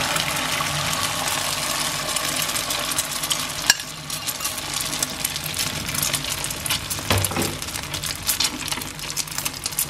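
Diced tofu in beaten egg with spring onion hitting hot oil in a frying pan: a loud sizzle as it goes in, settling into a steady crackle of small pops as the egg puffs up in the oil. One sharp click about four seconds in.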